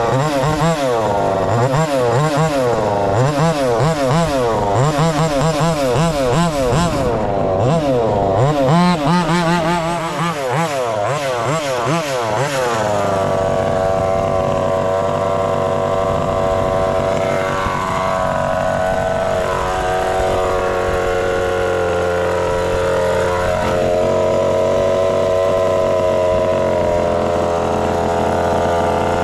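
Taylor 35cc two-stroke engine of a fifth-scale RC race truck revving up and down about once a second as it is driven. About 13 seconds in it settles to a steady, even note. The engine and two-speed gears are still breaking in.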